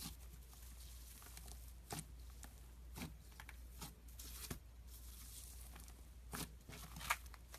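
Clear slime with gold foil mixed through it, worked by hand: sticky crackles and small irregular pops as it is stretched and pressed, the sharpest pop near the end.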